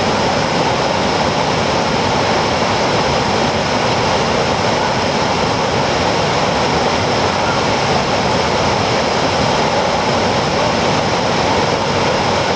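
Waterfall: the steady, loud rush of falling water, an even noise with no change in level.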